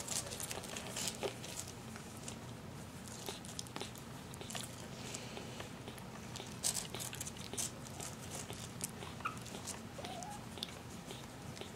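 Soft scratchy rustling and scattered small clicks as tiny puppies are handled and wriggle on a fleece blanket, with two faint short squeaks near the end.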